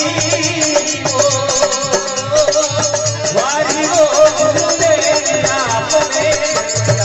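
Rajasthani folk bhajan music between sung verses: a melody sliding up and down over a steady held note, with a low drum beat and a constant jingling rattle. The drum beat drops out for much of the second half.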